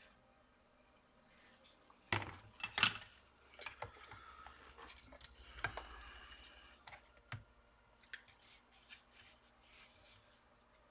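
Small metal repair tools clicking and scraping at a bench while the power jack's mounting holes on the laptop board are being cleaned out. There are two louder clicks about two seconds in, then lighter scattered clicks and rubbing.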